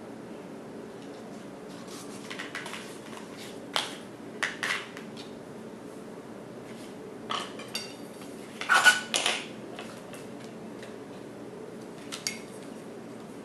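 Small objects handled on a tabletop: scattered light taps, clicks and short crinkly rustles of paper and plastic, the loudest cluster about nine seconds in, over a steady low hiss.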